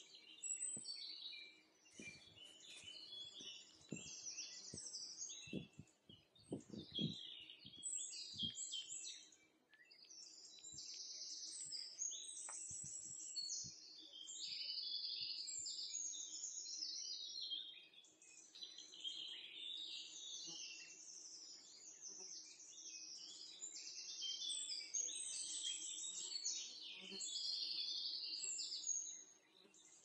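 Songbirds chirping and trilling in a busy, continuous chorus of high, quick notes. A few soft low thumps come between about four and eight seconds in.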